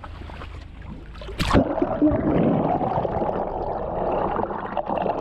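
A splash about a second and a half in as the camera plunges into the sea at a catamaran's stern, then muffled underwater rushing and gurgling of seawater along the hull.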